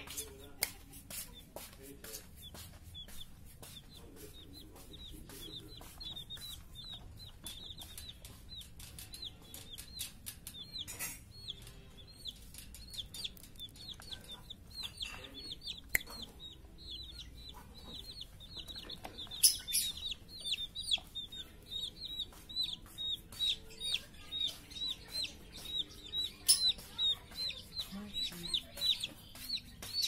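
Caged white cockatoo giving a long run of short, squeaky repeated calls, which come in quicker, louder pulses in the second half. Sharp clicks and taps, such as beak or hand on the wire cage bars, fall among them.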